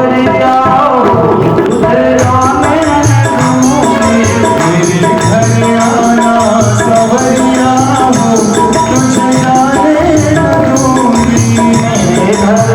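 Devotional kirtan: singing over a sustained drone, with tabla keeping a steady beat. Jingling hand percussion joins about two seconds in.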